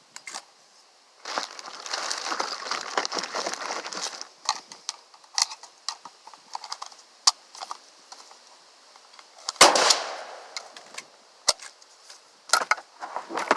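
A single shot from a 12-gauge pump shotgun about ten seconds in, ringing out and fading. Scattered sharp clicks and knocks come around it. A rushing noise lasts about three seconds near the start.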